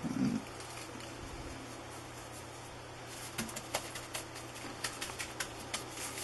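Gloved hands rubbing seasoning into a raw chicken on a metal baking sheet. After a brief low sound at the start, soft scattered crackles and taps of plastic gloves and rub set in about halfway through.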